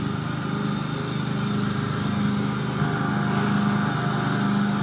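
Domestic cat purring steadily, the purr swelling and fading with each breath about every second and a half.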